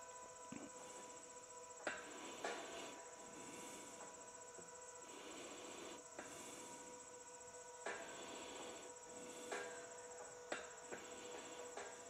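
Faint creaks and small clicks from a solar tracker's pivot bearings as its linear actuators slowly tilt the panel rack, over a steady hum and a constant high insect trill.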